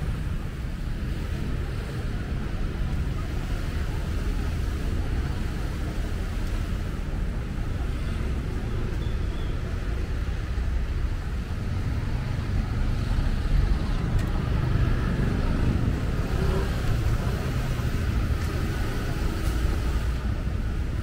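Steady street traffic: a low rumble of passing vehicles, growing a little louder in the second half.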